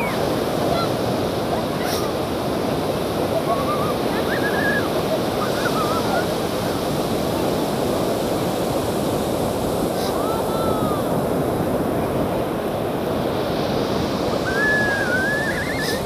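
Ocean surf breaking steadily on a sandy beach, a continuous rushing wash of waves, with faint distant voices now and then.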